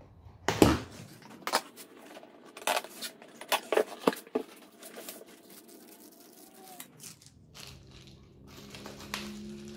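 A knife slitting the packing tape on a cardboard box and the cardboard lid being pulled open: a string of sharp scrapes and taps over the first few seconds, the loudest about half a second in, then quieter handling noises.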